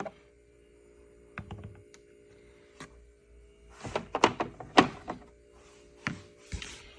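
Metal sockets being handled and set down: a few scattered clicks, then a quick run of sharp clinks and knocks about four to five seconds in.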